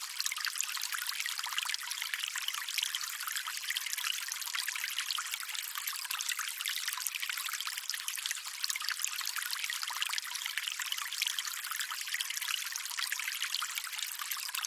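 Running water trickling steadily, an even, light splashing with no low rumble.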